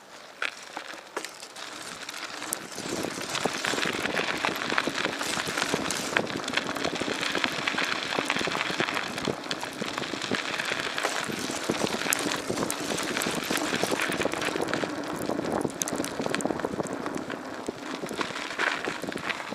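Footsteps crunching over dry, crackly ground, a dense run of small cracks and rustles.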